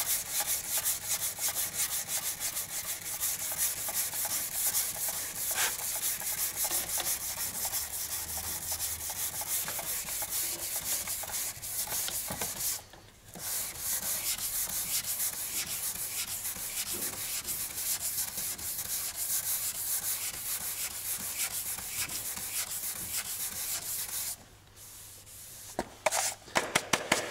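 Hand sanding of a car's fender with a sanding block and P320 abrasive paper: fast back-and-forth scratchy strokes taking off the remaining orange peel before painting. The sanding stops briefly about halfway through and again near the end, then picks up with a few more strokes.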